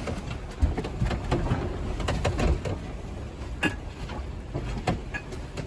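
Sailboat heeled under sail: a low rumble from the hull moving through the water, with scattered knocks and clicks of loose things shifting and sliding as the boat leans.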